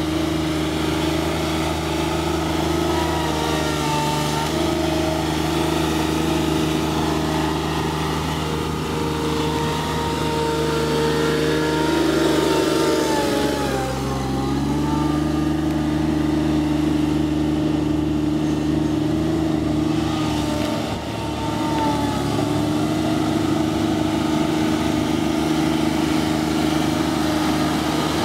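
Yanmar 3TNV70 three-cylinder diesel engine of a John Deere 2653B trim mower running steadily while the mower is driven, with a thin whine above the engine note. The pitch sags and settles at a new steady note about halfway through.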